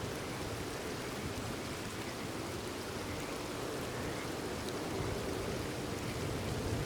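Steady rain falling, an even patter without breaks.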